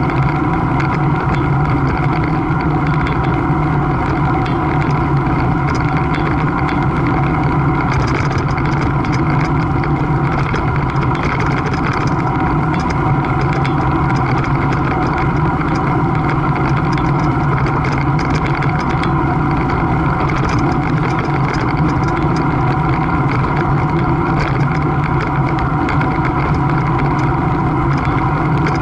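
A loud, steady engine-like drone whose pitch does not change, over a rushing noise.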